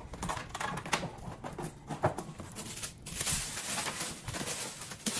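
A box being opened and its packaging handled by hand: scattered clicks and knocks, with a longer rustle about three seconds in.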